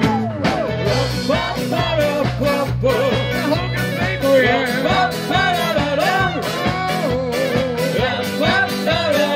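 Live rock band playing an instrumental break: drums, bass and guitars under a wavering, sliding lead melody line.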